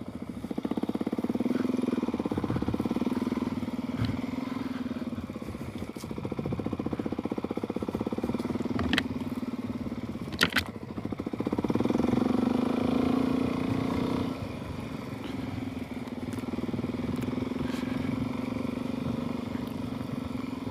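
Suzuki DR-Z400S single-cylinder four-stroke engine riding along, fitted with an aftermarket exhaust and a re-jetted carburettor. Its note rises under throttle about a second in and again about eleven seconds in, easing off in between, with a couple of sharp knocks around nine and ten seconds in.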